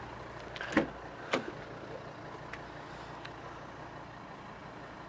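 Two sharp clicks about half a second apart, about a second in, then a couple of faint ticks, over a steady low hum: a Volvo XC90's rear door handle and latch being worked as the door is opened.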